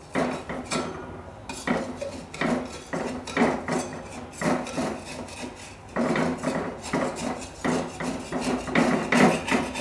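Metal slotted spatula scraping and knocking against an earthenware pan, about two strokes a second, as a chitoi pitha is worked loose and lifted from the pan.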